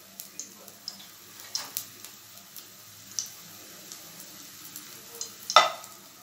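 Pancake roll shallow-frying in hot vegetable oil in a karahi: a faint steady sizzle with scattered spitting pops, then a loud clack near the end as a spatula knocks against the pan.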